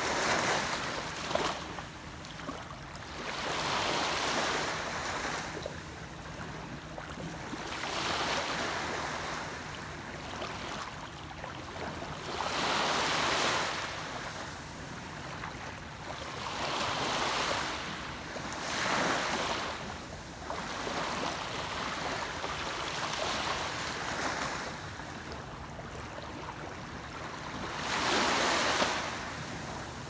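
Small waves breaking on a sandy beach and washing up the sand. Each wave is a hissing surge that swells and fades, one every three to five seconds.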